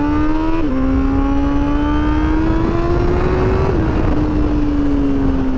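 Honda CBR1000RR-R Fireblade SP's inline-four engine pulling hard under acceleration. Its note climbs, steps down sharply at two quick upshifts (about half a second in and again near the middle), then sinks slowly as the throttle is eased.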